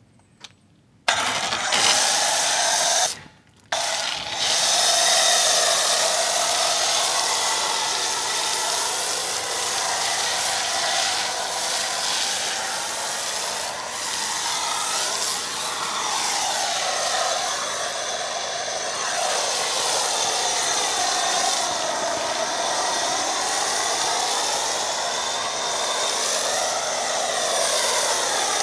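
Pressure washer spraying through a foam cannon, a steady rushing spray over the machine's running motor, whose whine wavers in pitch. It starts about a second in and stops briefly around three seconds in before running on.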